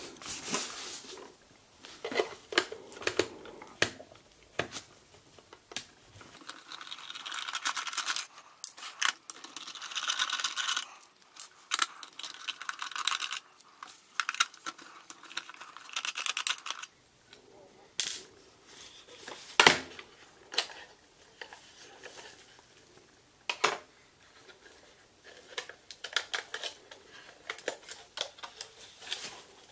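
Handling sounds of a small plastic alarm clock being taken apart with a screwdriver: a long stretch of scraping and rustling in the middle, then scattered sharp clicks and knocks of plastic parts and screws, the loudest about two-thirds of the way through.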